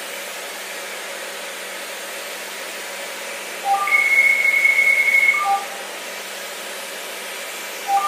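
Fractional CO2 laser treatment equipment running with a steady hiss of air. Over it comes a repeating pattern of electronic tones: two short beeps, a long higher tone of about a second and a half, then two short beeps.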